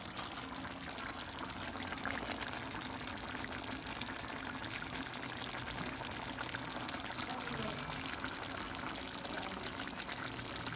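Chicken afritada stew simmering in its tomato sauce in a pan over a gas burner: a steady, even bubbling hiss with fine crackles.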